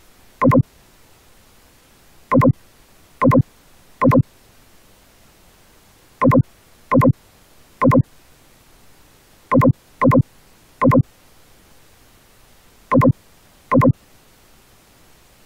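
Short electronic beeps, all at the same pitch, about a dozen at irregular intervals, some in quick pairs or runs, over a steady faint hiss.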